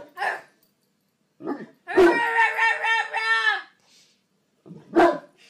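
Large dog barking in single barks: one near the start, two around the middle and one near the end. Between the middle barks and the last comes a high, wavering drawn-out cry lasting about a second and a half.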